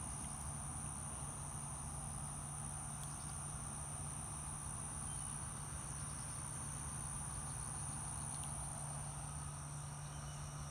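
Steady high-pitched insect chorus, like crickets, holding one unbroken tone, with a low steady hum underneath.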